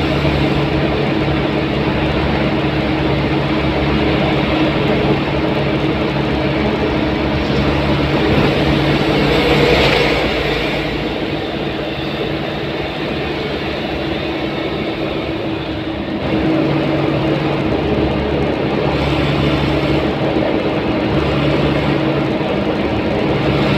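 Road noise from inside a vehicle cruising on an expressway: a steady engine drone under tyre rumble. It swells briefly about ten seconds in and rises again a little after the middle.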